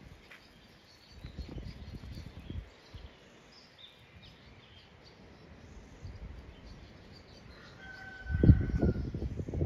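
Faint birdsong, scattered high chirps, over outdoor background noise. Low rumbling comes briefly about a second in, and louder and longer near the end.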